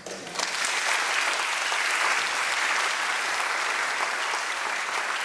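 Audience applauding the end of a piece: clapping builds up over the first half-second into steady, dense applause.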